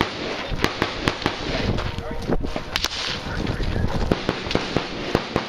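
AR-15 rifle shots in a match string: about a dozen sharp cracks at irregular spacing, some in quick pairs, over a steady background hiss.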